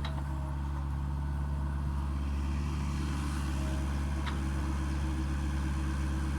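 Mini excavator's diesel engine running steadily, with a short click about four seconds in.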